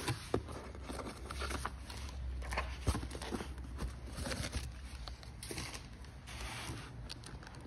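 Cardboard shipping box being opened by hand: flaps pulled apart and handled, with scattered light knocks, scrapes and rustles of cardboard.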